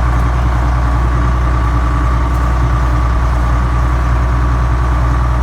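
An old tractor's engine running steadily as it pulls a rake through corn stalks.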